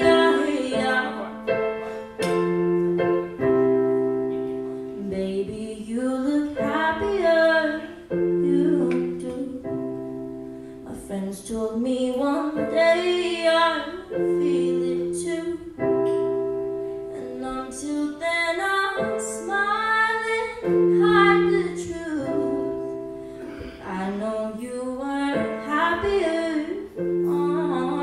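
A young woman singing, accompanying herself on an electric keyboard played with a piano sound; held chords change every couple of seconds under her sung phrases, which come in swells with short gaps between.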